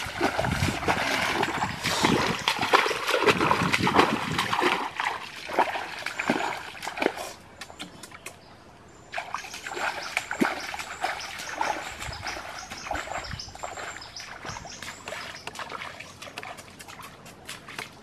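Bare feet wading and splashing through shallow water and soft mud among mangrove roots, with branches and leaves rustling as they are pushed aside. It stops briefly a little before halfway, then carries on more quietly.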